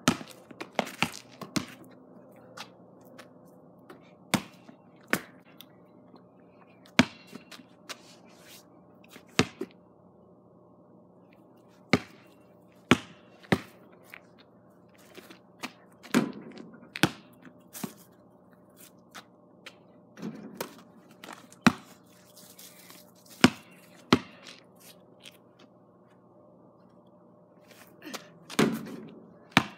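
A basketball bouncing on hard dry ground and striking the backboard and rim: sharp, irregular knocks, often two or three close together, every second or two.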